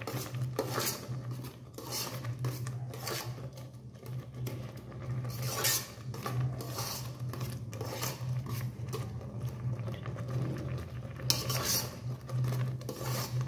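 A perforated metal spoon scraping and clinking against the metal inner pot of an electric rice cooker as vermicelli and jaggery syrup are stirred, in irregular strokes. A steady low hum runs underneath.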